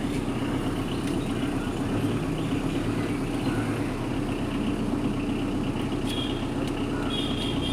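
Tata Indica Vista TDi diesel engine running steadily at idle with an abnormal sound, a fault that the scan reads as an injector short circuit.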